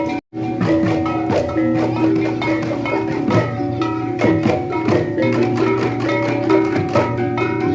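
Balinese tektekan ensemble playing: many bamboo tektek slit drums struck in a fast, dense interlocking rhythm, over pitched ringing tones. The sound cuts out for a split second just after the start.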